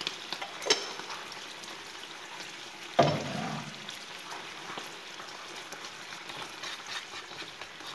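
Mẻ (fermented rice) sauce simmering and spitting in a small frying pan over a gas flame, stirred with chopsticks. There is a short click near the start and a sharp knock about three seconds in.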